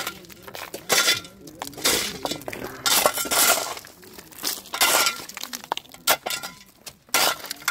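Shovel blade chopping into ice and river gravel: repeated crunching, clinking strikes of breaking ice and stones, about one a second.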